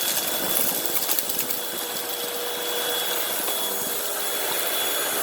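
Hoover WindTunnel upright vacuum running with a steady whine. For the first second and a half it crackles as it picks up debris, then it settles to a smoother, slightly quieter drone, which sounds to the operator like a clog.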